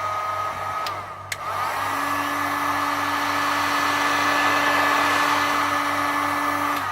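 Hot-air heat gun blowing steadily on a phone's back glass to soften the adhesive underneath. It dips briefly with a couple of clicks about a second in, then blows louder and cuts off near the end.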